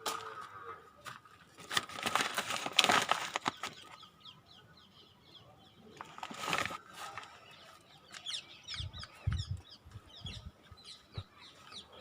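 Birds chirping in many short, quick high calls, with two loud bursts of rustling noise about two and six seconds in.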